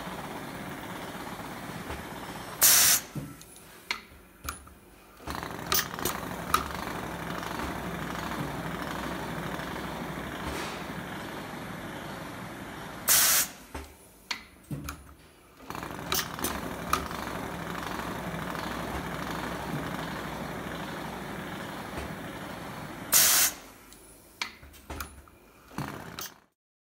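WIS PrepStar automatic weft-removal machine running steadily as it pulls weft yarns out of a forming fabric. Three times, about ten seconds apart, there is a short, loud hiss like a burst of compressed air, followed by a few clicks and a brief dip in the running noise.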